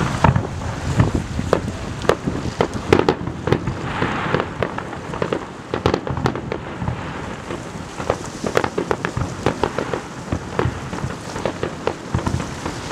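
Fireworks going off in a dense, irregular run of bangs and crackles.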